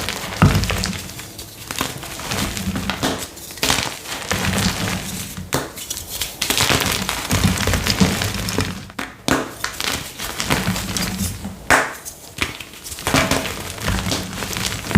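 Blocks of gym chalk crushed and crumbled by hand: irregular dry crunching and crackling with sharp snaps as pieces break, and soft thuds as chunks and powder fall.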